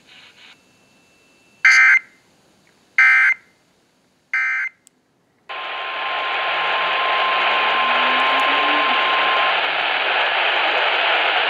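Weather radio sending three short warbling data bursts, the end-of-message code after a warning, about a second and a half apart. About five seconds in, a steady radio static hiss comes up, with a faint steady tone in it for about four seconds.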